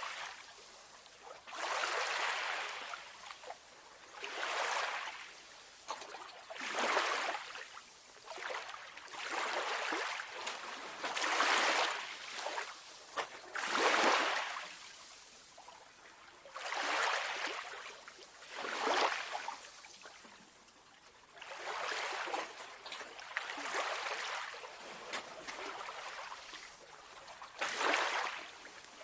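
Calm sea waves washing gently onto a shore. Each one swells in a soft hiss and fades, about every two to three seconds.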